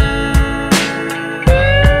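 Background instrumental music with a steady beat and sustained notes, moving to new notes about one and a half seconds in.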